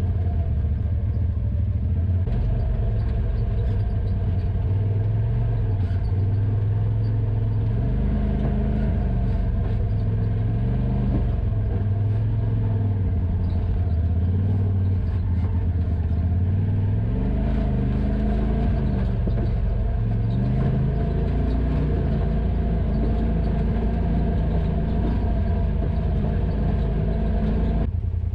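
Side-by-side UTV engine running while driving on a trail, its pitch rising and falling repeatedly as the throttle is worked through the middle stretch, then holding steadier.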